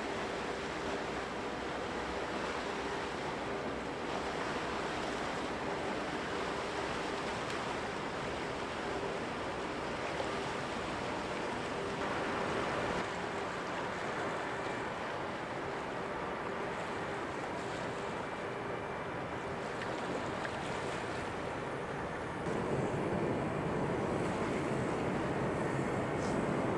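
Steady outdoor rushing noise with a faint low steady hum. About 22 seconds in, a louder rumble comes in and holds.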